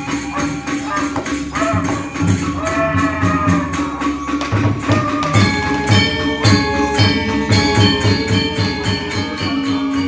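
Balinese gamelan orchestra playing: ringing metallophone tones over fast, even cymbal-like clashes, about five a second, with kendang drum strokes coming in strongly about halfway through.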